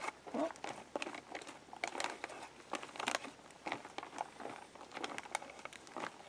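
Long spoon stirring freeze-dried beef stew rehydrating in boiling water inside a foil-lined Mountain House pouch: the pouch crinkles and the spoon scrapes in irregular short scratches and clicks.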